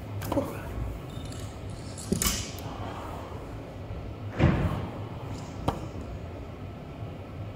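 A few separate knocks and thuds echoing in a large gym hall, the loudest about four and a half seconds in, over a low steady hum.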